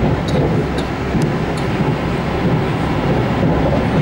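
Passenger train running at speed, heard from inside the carriage: a steady loud rumble of wheels on the rails, with a few faint clicks in the first two seconds.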